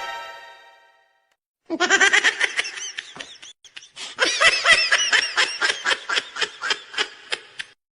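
A ringing tone fades out in the first second. After a short silence, a laughing sound effect of quick, high-pitched ha-ha bursts runs for about six seconds and cuts off just before the end.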